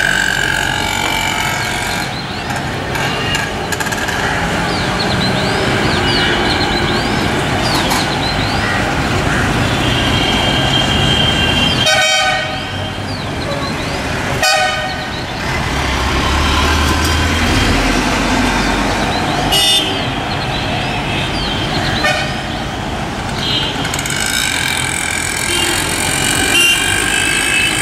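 Busy street traffic with vehicle horns honking again and again over a steady traffic din. Short horn toots stand out about 12 and 14 seconds in.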